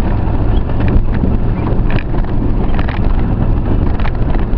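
Off-road vehicle engine running steadily under way, with wind buffeting the microphone and a few brief rattles.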